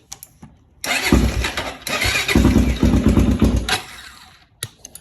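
Honda 400EX quad's single-cylinder four-stroke engine being started with the electric starter: it cranks and fires about a second in, runs loudly for a few seconds, then drops quieter near the end. It starts in gear with the clutch held in because the neutral-switch wire (green and yellow) has been cut and spliced together to bypass the switch.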